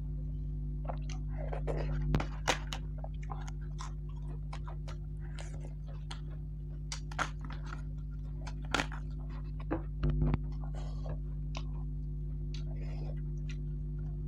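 Chewing and crunching of crisp papad wafers, a string of short, sharp crackles scattered irregularly, over a steady low hum.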